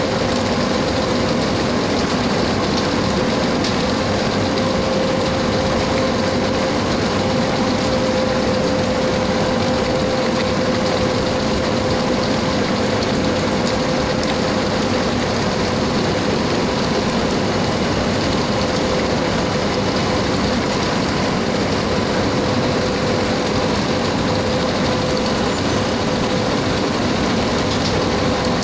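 450 kW, one-ton induction melting furnace running under power: a steady, loud noise with a constant pitched hum.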